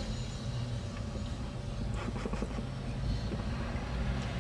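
Steady low rumble of a vehicle, heard from inside a van's cabin, with a few faint clicks and handling noises about two seconds in.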